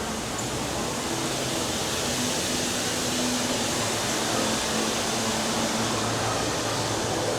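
Steady background hiss of a large indoor shopping mall, ventilation and distant crowd noise blending together, with a faint low hum in the middle.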